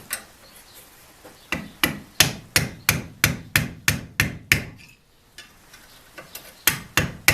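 Hammer blows on steel as the curled, bent end of a knife is knocked flat on a steel block used as an anvil. A few light taps, then a run of about ten sharp, ringing blows at about three a second, a pause, and the blows start again near the end.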